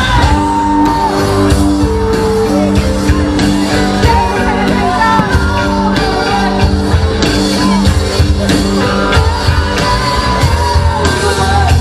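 Loud rock music with singing over a heavy bass, starting abruptly.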